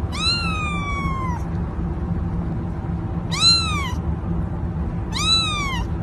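A cat meowing three times: one long call that falls in pitch, then two shorter ones, over a steady low hum.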